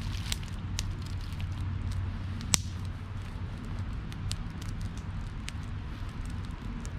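Campfire crackling, with scattered sharp pops and one loud pop about two and a half seconds in, over a steady low rumble.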